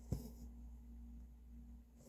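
A soft tap and a short rasp near the start, the sound of a needle and thread drawn through cross-stitch fabric, over a faint steady hum.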